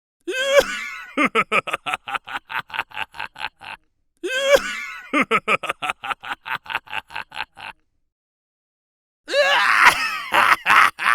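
Cartoon vocal emote sound effect played twice: a short sliding cry breaks into a rapid stuttering run of about six pulses a second that fades out. A rougher cartoon vocal sound starts near the end.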